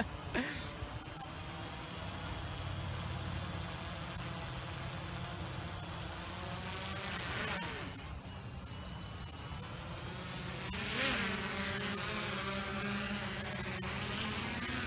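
Small quadcopter drone flying, its motors and propellers giving a steady high-pitched buzzing whine over a lower hum.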